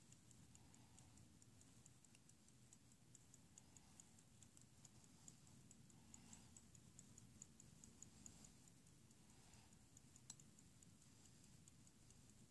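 Antique verge fusee pocket watch ticking faintly and evenly as it runs. One sharper click about ten seconds in.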